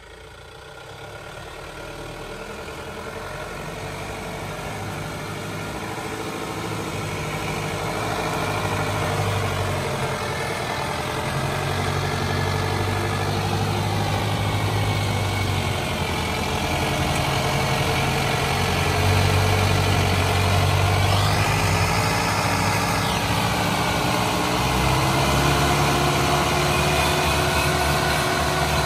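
Mahindra Bolero 4x4 pickup's BS3 diesel engine running at low revs as the truck crawls through mud, growing louder over the first several seconds. About three-quarters of the way through the revs briefly rise and fall.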